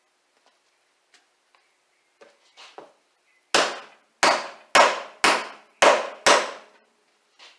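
A homemade pickleball paddle's handle end with its butt cap knocked down hard onto the workbench six times, about two knocks a second, seating the freshly glued cap. A few faint clicks and light handling come before the knocks.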